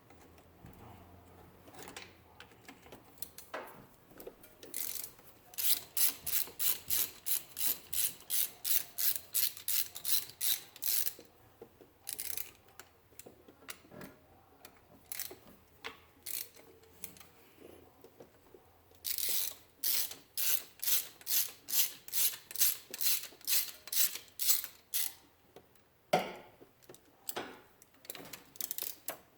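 Hand ratchet wrench being swung back and forth, its pawl clicking about three times a second in two long runs with scattered single clicks between.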